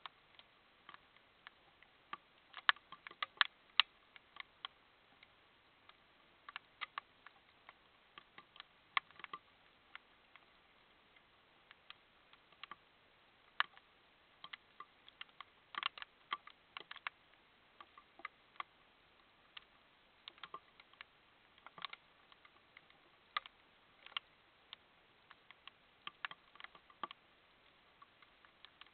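Irregular sharp clicks and ticks, some single and some in quick clusters, over a faint steady hiss.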